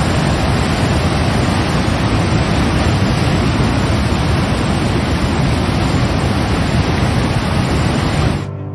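Heavy floodwater pouring over a weir and churning into white water, a loud, steady rush of water. It cuts off suddenly near the end as bowed-string music begins.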